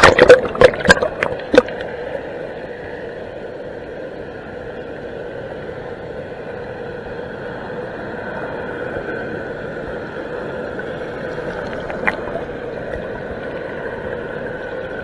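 Water splashing against a cased GoPro as it plunges into a pool: several sharp splashes in the first second and a half. Then a steady hum and rush while the camera stays under water, with one sharp knock about twelve seconds in.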